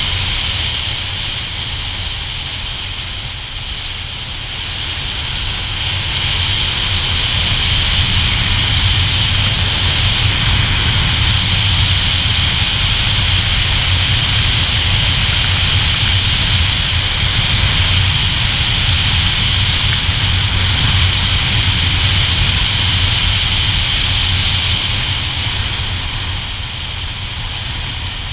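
Motorcycle engine running at road speed with wind rushing over the bike-mounted camera, a low engine rumble under a steady hiss. It eases a few seconds in, comes up again and holds, then drops near the end.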